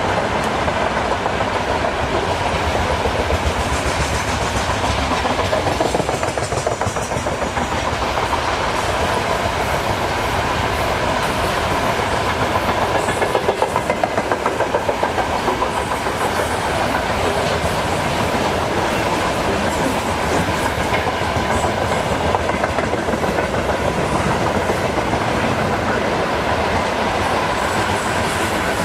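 Freight train wagons rolling past, wheels clacking rhythmically over the rail joints, with a thin steady ringing tone over the continuous rumble.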